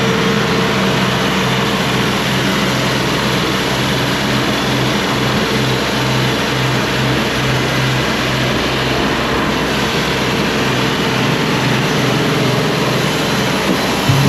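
Cook's AC 36 band sawmill running under load, its engine droning steadily while the band blade cuts a board off the log. The engine's note changes just before the end.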